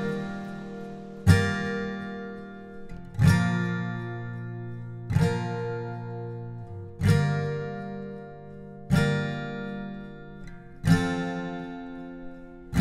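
Background music: an acoustic guitar strums a single chord about every two seconds, and each chord rings out and fades before the next.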